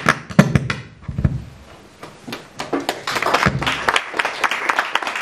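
Audience applause, starting sparse about two seconds in and thickening into steady clapping. A few dull knocks and thumps come in the first second or so.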